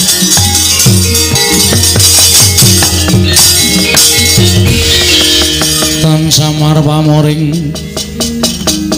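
Javanese gamelan ensemble accompanying a wayang kulit shadow-puppet play: bronze metallophones ringing held notes over drumming, with a bright jingling top layer. Near the end a singer's voice comes in.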